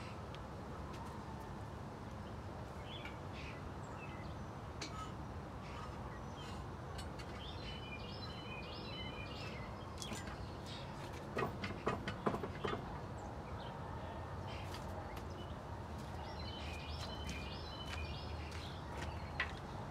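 Birds singing in two short spells over a steady low background noise, with a quick cluster of metallic clinks and knocks about halfway through from hand tools working in a car's engine bay.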